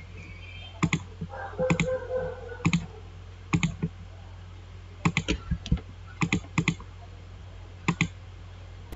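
Scattered sharp clicks of a computer mouse and keyboard, about a dozen, many in quick pairs, over a low steady hum.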